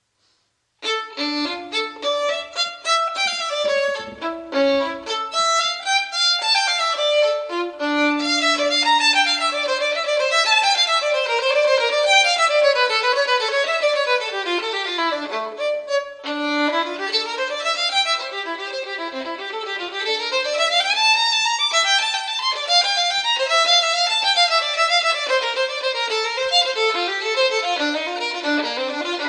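Instrumental music led by a violin, played in fast rising and falling runs; it starts about a second in after a brief silence.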